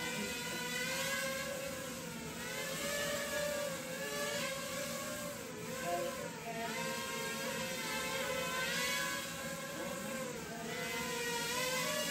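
Sharper Image DX-2 mini quadcopter drone's four small propeller motors whining, the pitch rising and falling again and again as the throttle changes.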